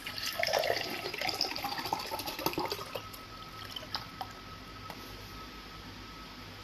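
Water poured from a plastic bottle into a drinking glass: a splashing, gurgling stream for about three seconds. Then it goes quieter, with a few faint clicks.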